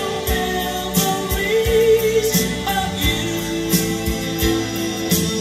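A song with a singing voice, instruments and a steady beat, played from a vinyl record on a Kenwood KD-5077 turntable through a Monoprice tube amplifier and Allison Four bookshelf speakers.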